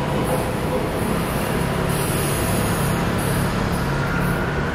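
Steady low hum and rumble of a stationary passenger train, heard from inside the carriage.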